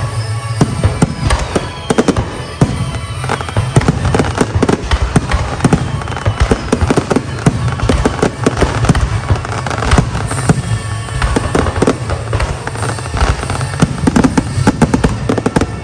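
Fireworks display: a dense barrage of shells bursting one after another with sharp bangs and crackling, and a few falling whistles.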